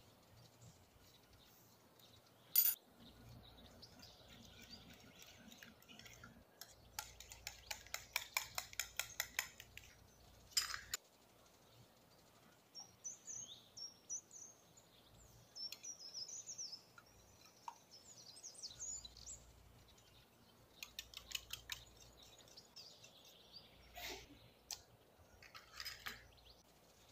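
A metal fork beating eggs in a ceramic dish: spells of rapid clicking as the tines strike the dish, with single sharp clinks between.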